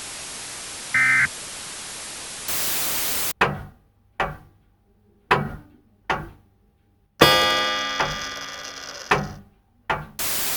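The last of three short EAS end-of-message data bursts over steady radio static. Then a louder burst of static, four sharp thunks that each die away quickly, a loud ringing chord of many tones fading over about two seconds, two more thunks and a last burst of static.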